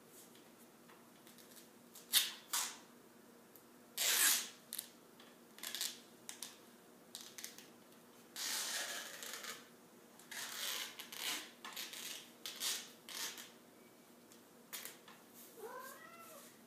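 Athletic tape being pulled off the roll, torn and laid onto a bare foot's arch: a series of short ripping and crackling noises, with a longer pull about eight seconds in. A brief high squeak near the end.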